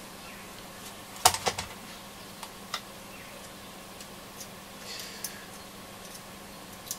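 Scattered small clicks and taps of hook-clip test leads being handled and fitted onto transistor leads on a metal radio chassis, the sharpest click about a second in and a few fainter ones after.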